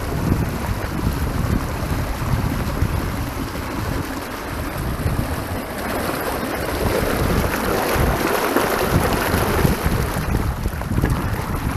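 Pump discharge water gushing and splashing out of a curb outlet into a running, flooded gutter, louder for a few seconds from about six seconds in. Wind buffets the microphone.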